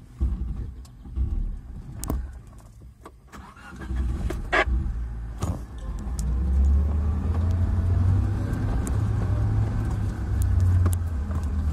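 Engine of a Suzuki off-road 4x4 running at low revs: a steady low rumble that builds from about four seconds in and then holds. A few sharp clicks and a short squeak come before it.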